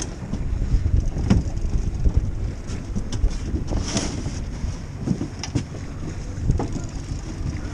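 Wind buffeting the microphone as a steady low rumble, with a few sharp knocks and clicks scattered through it.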